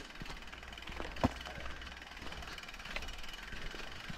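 Mountain bike's rear freehub ticking as the wheel turns without pedalling, with one sharper knock about a second in.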